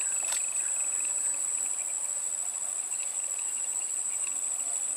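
Insects trilling: a steady, high-pitched drone, with a fainter, rapidly pulsing second call coming and going lower down, and one sharp tick about a third of a second in.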